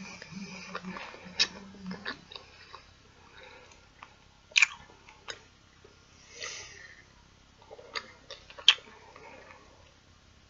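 A person chewing a piece of Laffy Taffy with the mouth closed: soft, sticky chewing broken by several sharp mouth clicks and lip smacks, the loudest about halfway through and near the end. A low hummed "mm" is heard in the first two seconds.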